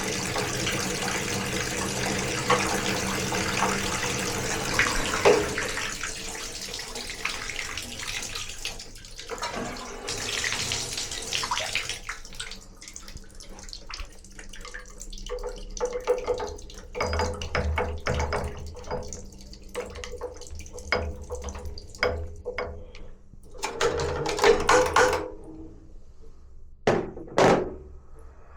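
Water running steadily from a tap, easing off about twelve seconds in, followed by scattered clicks and knocks.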